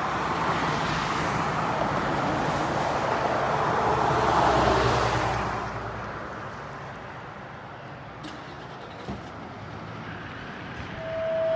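A car passes on the street, its engine and tyre noise swelling to a peak about four seconds in and fading away by about six. Then quieter traffic hum with a couple of light clicks, and near the end a steady electronic alert tone starts, of the kind that comes before a fire dispatch.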